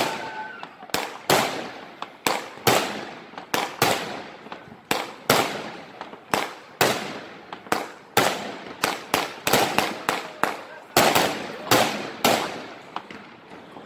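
Aerial fireworks bursting overhead: a steady run of sharp bangs, about two a second, each trailing off in echo.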